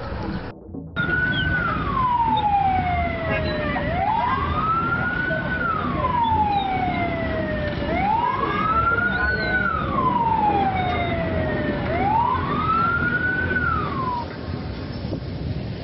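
An emergency vehicle's siren wailing, four slow cycles, each a quick rise and a long falling glide. It starts about a second in and stops near the end, over steady background noise.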